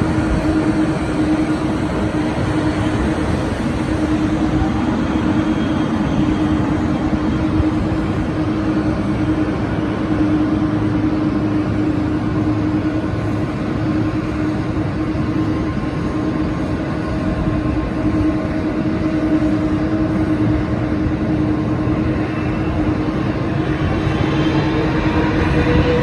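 Jet engines of a Boeing 777-300ER (GE90 turbofans) running steadily with a constant whine. Near the end the whine starts to rise as the engines spool up for the takeoff roll.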